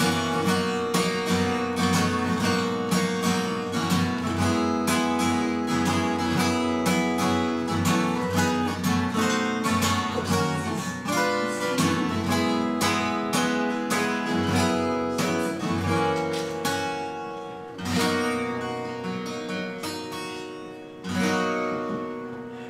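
Steel-string acoustic guitar strummed in a steady rhythm, then slowing to a few last strums, each left to ring out, as the song ends.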